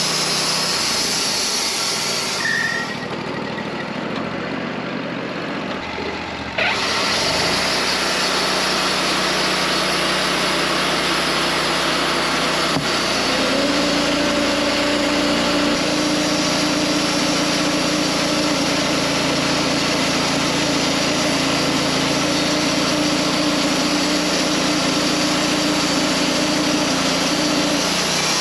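Wood-Mizer LT40 Wide portable band sawmill running steadily, its engine and band blade at work on a large oak log. The sound goes softer and duller for a few seconds early on; a steady whine comes in about halfway and holds.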